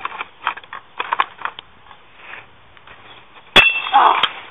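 Scattered knocks of a bat and hammer striking broken air hockey table pieces, then one loud clanging hit with a brief ring about three and a half seconds in, followed by a short noisy burst.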